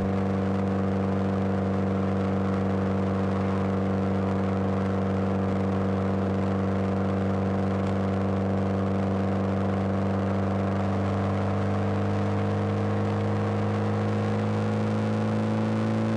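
Mitsubishi Lancer Evolution VI's turbocharged 2.0-litre 4G63 four-cylinder idling steadily after a drive, its pitch holding almost constant.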